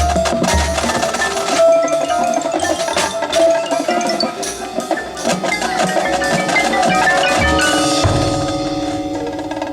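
Marching band percussion playing: mallet keyboards such as marimba, xylophone and glockenspiel in quick struck notes over drums, with a held low note near the end.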